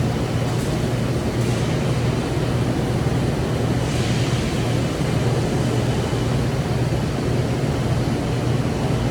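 TIG welding arc running steadily: a low electrical buzz with a hiss over it.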